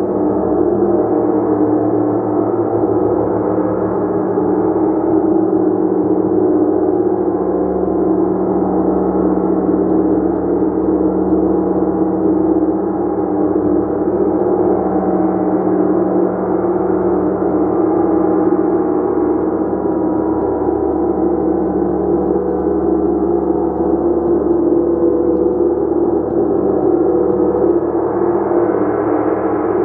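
A gong played continuously, sounding as a steady, dense wash of many overlapping ringing tones with no single strike standing out.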